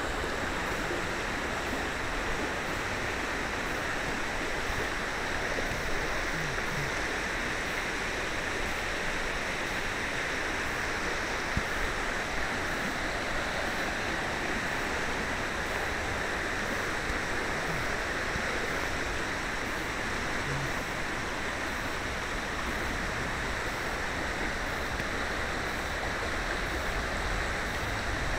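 Steady rushing of a small stream flowing over stones.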